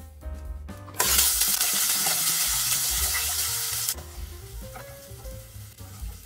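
Potato and carrot chunks frying in hot cooking oil in a nonstick wok. A loud sizzle starts suddenly about a second in and lasts about three seconds, then drops to a softer sizzle while a wooden spatula stirs them. Background music plays throughout.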